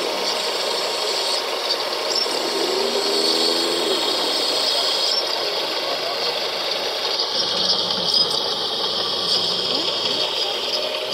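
Small electric motors and gearboxes of radio-controlled model trucks and excavators running with a steady high whine and whirr, their pitch and mix changing a little after seven seconds.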